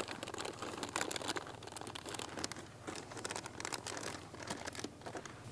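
Thin plastic bags crinkling and rustling irregularly as hands stuff and tuck them into a canvas bin as a liner.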